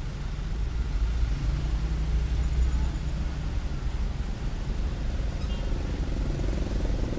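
Road traffic passing close by: engines of cars, a small truck and motorcycles running at low speed, a steady low rumble.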